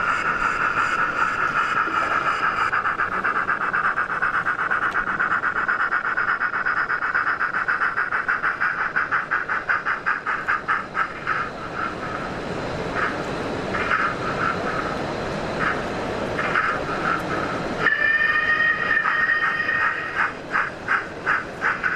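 Sound-fitted model steam locomotive playing through its small onboard speaker. It gives a steady hissing tone at first, then rhythmic exhaust chuffs from about halfway. A short whistle comes about 18 seconds in, followed by regular chuffs about three a second.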